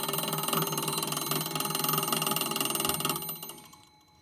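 Electric bell fitted inside an antique reliquary trophy, its electromagnet coils driving the striker against the bell dome in a fast, continuous ring. It stops about three seconds in and the ring dies away.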